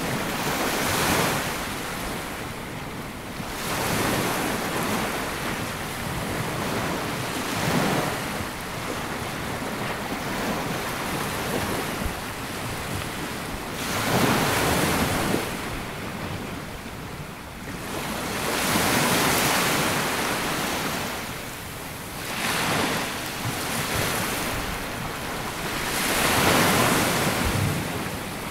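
Sea waves breaking and washing up a sandy beach. Each wash swells and fades every few seconds, about seven surges in all.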